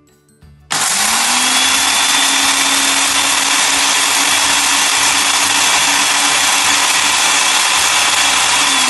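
Countertop mixer-grinder switched on about a second in, its motor spinning up quickly to a loud, steady high-speed whir with a thin whine, grinding a dry-roasted spice mix with grated coconut. Right at the end its pitch starts to drop as it is switched off and winds down.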